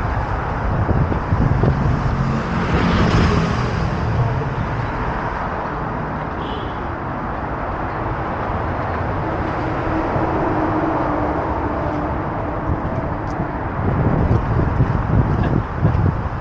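Steady rumble of traffic on a city bridge, with no single event standing out.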